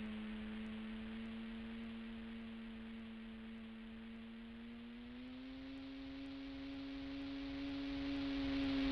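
RC plane's motor and propeller droning in flight, a steady pitched hum over airy hiss. It fades a little, then the pitch rises slightly about halfway and it grows louder as the plane comes closer.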